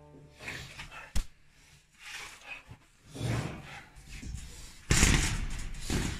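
Scuffle close to the microphone: clothing rustling and bodies shifting, a sharp knock about a second in, and a loud sudden thump with rustling about five seconds in.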